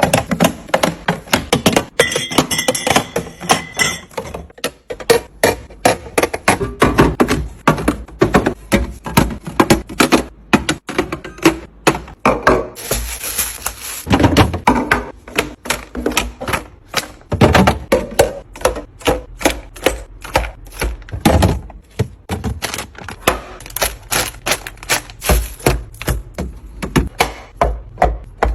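Quick, uneven clicks, taps and knocks, several a second, of food containers, lids and packaging being handled and set down while restocking a fridge, with a brief rustle about halfway through.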